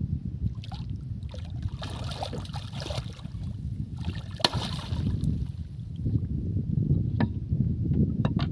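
A large hooked fish thrashing and splashing at the water's surface beside a wooden boat, in two spells about two and four and a half seconds in, over a steady low rumble of wind on the microphone. A couple of sharp knocks come near the end.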